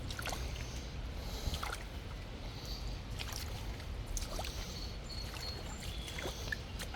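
Footsteps wading through shallow river water, with sloshing and small splashes over a steady low rumble. A few faint high chirps come through.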